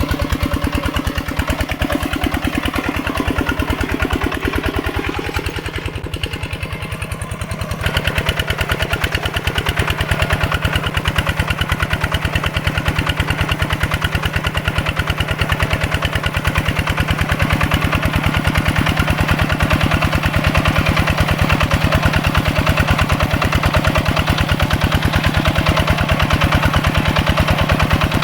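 Single-cylinder diesel engine of a mini walk-behind tractor running steadily with a rapid, even firing beat. It dips slightly a few seconds in, then runs louder from about eight seconds in.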